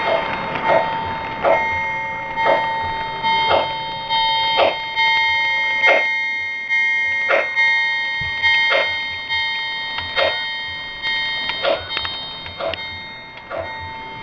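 O scale model train's locomotive sound-system bell ringing steadily, struck about once a second, each ring fading before the next, while the train's cars roll past on the track.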